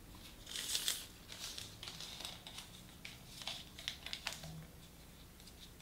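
Pieces of newspaper rustling and crinkling as they are pressed by hand around a paste-coated glass jar, in short irregular rustles, loudest about a second in.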